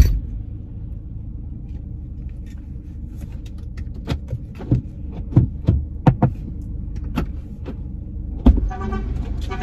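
Steady low hum of a car idling, heard inside the cabin. Scattered clicks and knocks from movement in the seat, with a louder thump near the end.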